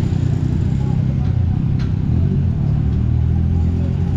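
A motorcycle engine running as the bike rides across and pulls away, a steady low drone over general traffic hum.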